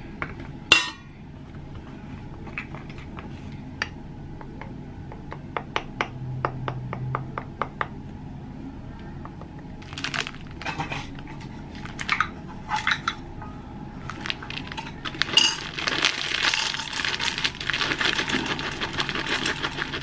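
A metal spoon clinking and scraping against a stainless steel mixing bowl, a run of light separate clinks. From about three-quarters of the way in, a dense rustle and rattle as a bag of chocolate chips is handled and poured into a metal measuring cup.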